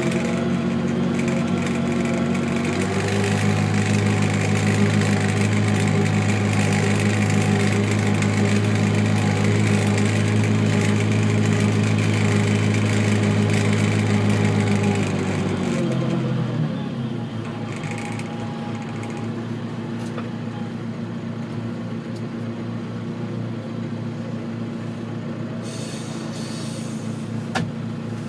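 A John Deere compact tractor's diesel engine running, heard from inside the cab: held at raised revs for roughly the first half, then dropping back to a lower, steadier speed about sixteen seconds in. A single sharp click near the end.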